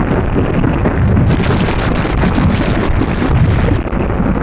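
Heavy wind buffeting on the microphone over the low rumble of a moving vehicle's road and engine noise. A brighter hiss joins in about a second in and drops away near the end.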